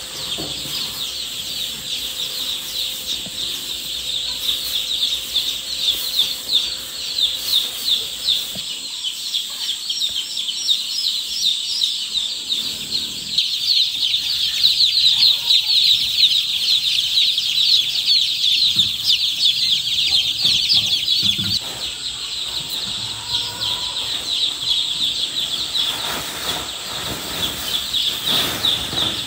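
A crowd of newly hatched chicks peeping, with many high-pitched cheeps overlapping in a steady chorus.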